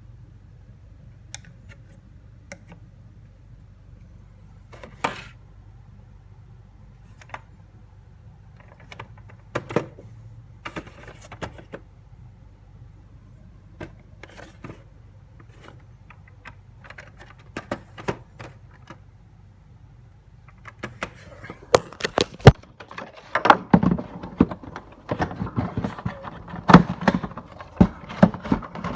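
Funko Pop box packaging being handled: scattered light clicks and taps of cardboard and plastic, then, about two-thirds of the way through, a denser and louder run of rapid clicks and rustling as the packaging is worked open.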